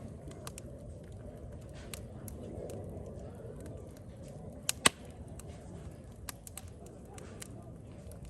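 Scattered sharp clicks, two loud ones close together a little under five seconds in, over a low steady rumble.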